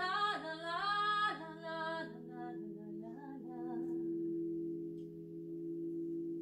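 Crystal singing bowls holding several steady, overlapping tones, with a woman's voice singing a wordless melody over them that fades out about halfway through, leaving the bowls ringing alone.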